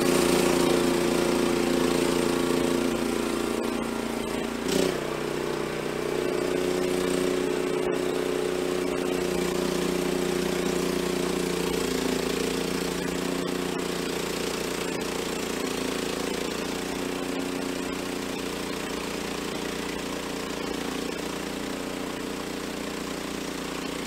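Small gasoline engine of a portable band sawmill running steadily under load as the mill head is pushed along a red oak log, its band blade cutting. A single sharp knock sounds about five seconds in.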